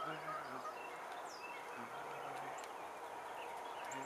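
Hens clucking softly now and then: a few short low clucks at the start and a longer one about two seconds in, over a steady outdoor hiss.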